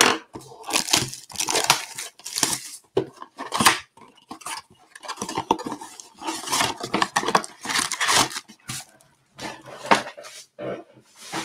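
A trading-card blaster box being torn open by hand: the cardboard flap ripping and the foil-wrapped card packs rustling as they are pulled out. It comes as a run of short, irregular rips and crinkles.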